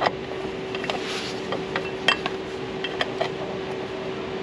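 Steel open-end wrench clinking against a metal oil-line fitting on a diesel engine as it is worked, a few scattered sharp metallic clicks, over a steady hum.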